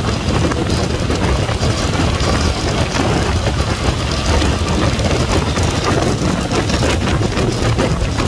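Yamaha MT-09 motorcycle's inline-three engine running at a steady cruising speed, mixed with wind rushing over the helmet camera's microphone. The sound stays steady, with no revs rising or falling.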